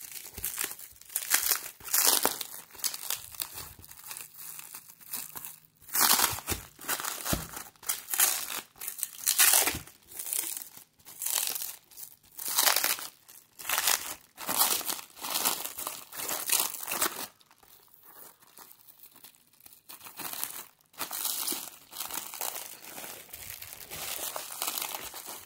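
Clear plastic shrink wrap being torn and crumpled off a book by hand, in irregular crinkling bursts, with a quieter lull about two-thirds of the way through.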